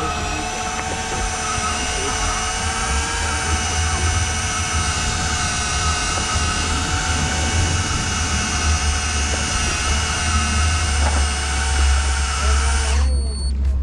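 Electric fishing reel's motor winding in line with a steady, high whine. It stops abruptly about 13 seconds in, dipping slightly in pitch as it stops. A low rumble runs underneath.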